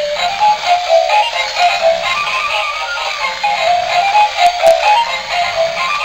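Dancing Angry Bird toy robot playing a tinny electronic tune with synthesized singing through its small built-in speaker, the melody stepping up and down between a few notes. Two faint clicks a little past the middle.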